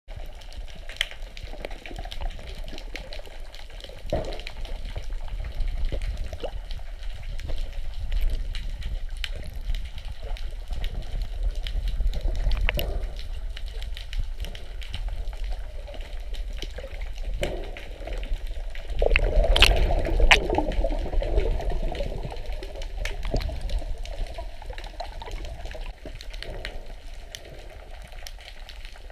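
Underwater water noise picked up by a submerged camera: a steady low rumble with scattered clicks and pops, and a louder rush about two-thirds of the way through.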